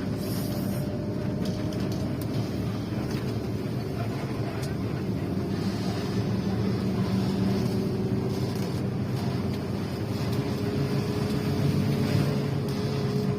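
Steady vehicle drone inside a bus: a continuous low engine hum and running noise with faint steady tones.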